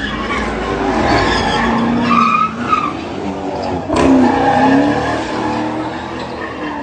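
Car doing donuts: tyres squealing and skidding as the engine revs. A sharp crack about four seconds in.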